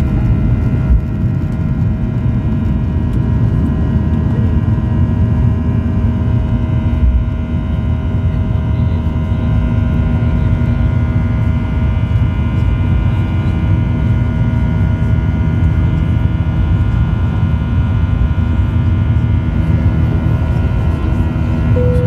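Boeing 737 jet engines at takeoff power, heard from inside the cabin over the wing: a loud, steady rumble with several steady whining tones above it as the jet lifts off and climbs.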